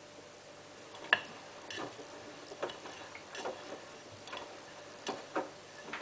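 Hotpoint Ultima WT960 washing machine tumbling during its first rinse. A sharp click about a second in, then the drum turning, with wet laundry and water in the drum giving soft knocks and splashes roughly once a second.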